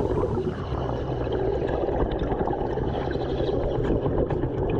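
Steady underwater rumble with faint gurgling and a few small clicks, picked up by a diver's camera on the seabed.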